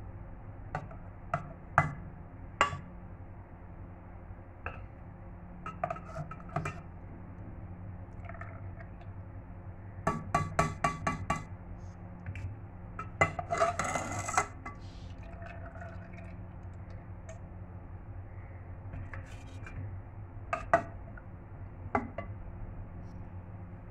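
Steel slotted spoon clinking against a stainless steel pot as syrup-soaked balushahi are lifted out of the sugar syrup. Scattered sharp clinks, a quick run of them about ten seconds in and a longer rattling stretch just after, over a steady low hum.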